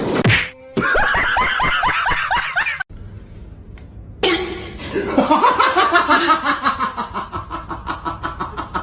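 A person laughing hard in two bouts of quick, rhythmic "ha-ha" pulses, the second longer and tapering off near the end.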